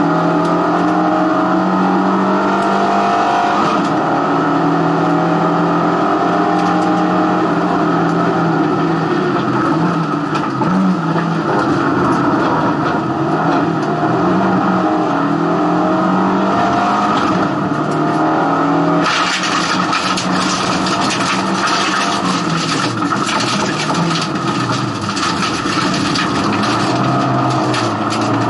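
Race car engine heard from inside the cabin at racing speed, its note repeatedly rising and dropping with gear changes and braking. About two-thirds of the way in, a harsh rattling hiss joins and stays.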